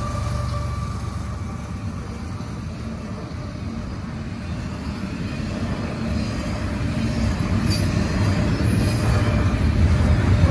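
CSX double-stack intermodal freight train rolling through a grade crossing at speed: a steady rumble of steel wheels on rail that grows louder toward the end, with two brief high squeaks about eight seconds in.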